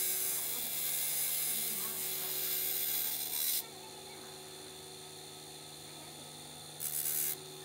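A steel firing pin being ground on a spinning grinding wheel: a harsh, hissing rasp that stops about three and a half seconds in, leaving the steady hum of the running wheel. The pin touches the wheel again briefly near the end.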